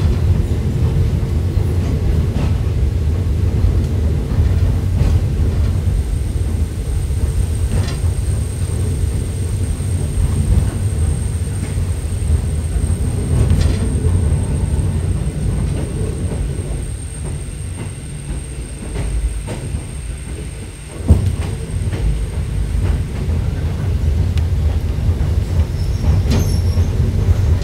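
Hakone Tozan Railway electric train running downhill, heard from inside the car: a steady low rumble of wheels on rail, with a thin high wheel squeal held through much of the middle stretch. A few light clicks sound from the track, and one sharp clunk comes about three-quarters of the way through.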